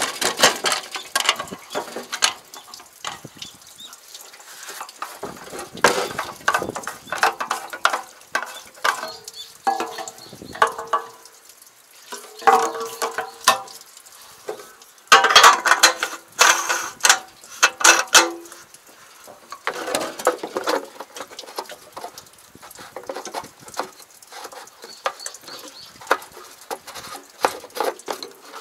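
Gasoline being poured from a metal fuel can through its hose spout into a power sprayer's fuel tank. Metal clinks and knocks follow as the can is lifted away and the tank cap is handled, some closely spaced, with a dense cluster about halfway through.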